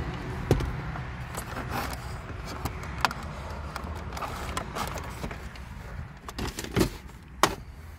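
Hard plastic clicks and knocks of dashboard trim and wiring connectors being handled as the radio and climate-control fascia is worked free, with sharp snaps about half a second in, around three seconds, and twice near the end.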